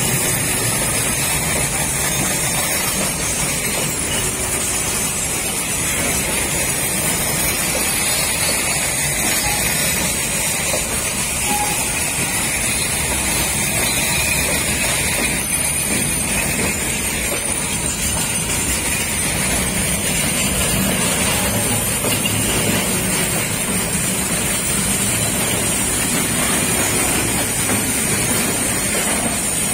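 Freight train of container flatcars and boxcars rolling past at close range: a steady noise of steel wheels running on the rails.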